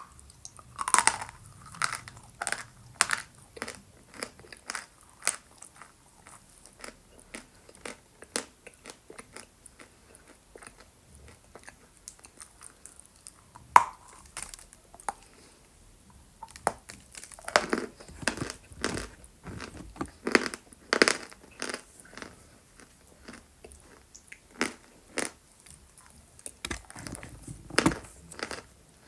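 Close crunching and chewing of dry chalk coated in a paste of pink Uzbek clay. Irregular sharp crunches come one after another, with a denser run of bites about two-thirds of the way through and again near the end.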